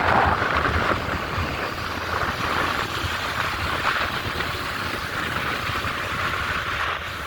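Steady noise of a vehicle running, a low rumble under an even hiss.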